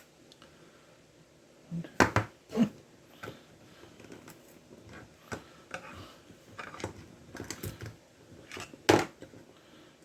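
Casing and inner parts of a small battery-powered vibrating massager being pried apart and handled on a workbench: a string of irregular clicks and knocks, the loudest about two seconds in and again near the end.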